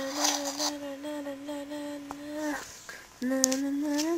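A person humming long held notes: one steady note for about two and a half seconds, a short break, then a second note near the end that rises slightly.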